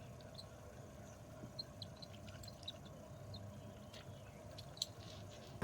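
Faint outdoor ambience: scattered short, high chirps and small clicks over a low steady hum, with a sharper click near the end.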